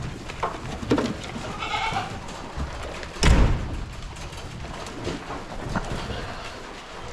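Goats and sheep bleating in a few short calls, with one loud thump a little over three seconds in.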